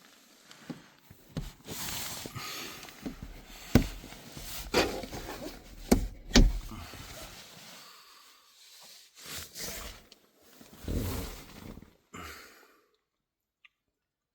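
Rustling and handling noise with several sharp knocks, loudest around the middle, broken by short pauses.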